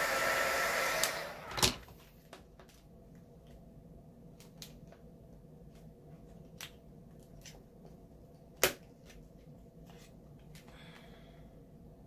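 Heat gun blowing hot air, switched off about a second and a half in. Then faint, scattered clicks and taps from handling the work, with one sharp click later on.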